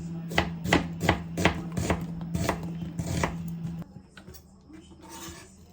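Kitchen knife chopping food on a cutting board: about eight quick chops in the first three and a half seconds, then a few faint clicks. A steady low hum under the chopping cuts off about two-thirds of the way in.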